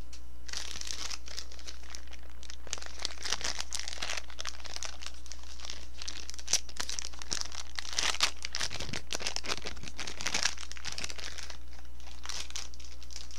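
Crinkling of the thin plastic film casing on a Chungjungone old-style stick sausage as it is handled close to the microphone: irregular crackles with sharp little snaps, starting about half a second in.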